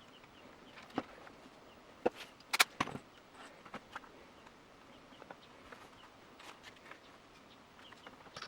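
A few sharp clicks and knocks of tools and parts being handled during plastic welding, the loudest cluster about two to three seconds in, with faint small chirps in the background.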